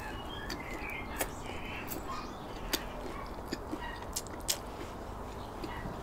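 A person chewing a mouthful of baguette sandwich, with a handful of sharp wet mouth clicks and lip smacks, including a smack about four and a half seconds in as fingers are licked. Faint bird chirps sound in the background near the start.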